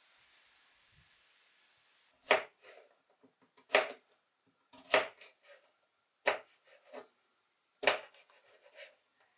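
Kitchen knife slicing a zucchini into rounds on a plastic cutting board: five crisp cuts, starting about two seconds in and coming roughly every one and a half seconds, each followed by a few lighter taps.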